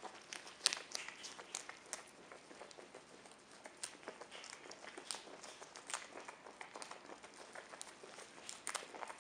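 Capybara chewing curly kale: quiet, irregular crunches and leafy crackles as it bites and tears the leaves, the sharpest a little under a second in.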